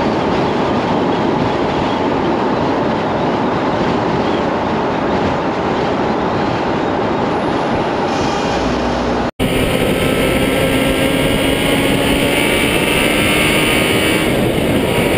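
Steady rushing road and wind noise of a vehicle driving along an asphalt road. It cuts out briefly about nine seconds in, then resumes with a faint slowly rising engine tone under the noise.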